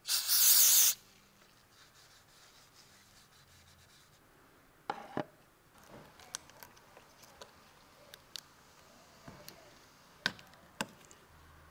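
A cloth shop towel rubbed briskly over the engine's oil filler neck, one loud rub just under a second long at the start. Then scattered light clicks and taps as hands handle a plastic oil jug and work at its cap.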